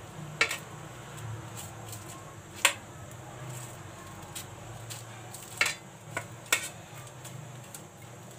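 Steel knife blade clicking and tapping against a stainless steel plate as charred skin is scraped off a roasted brinjal: about five sharp clicks spread through, over a faint steady hum.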